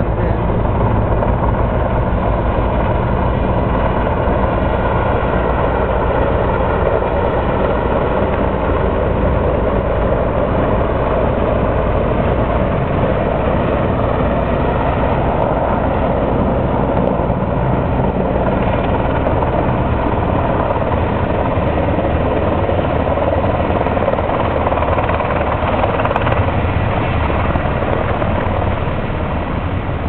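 Sikorsky S-64 Skycrane firefighting helicopter in flight, its rotor and turbines running with a steady sound that gets a little quieter near the end as it moves away and lowers toward its refill tank.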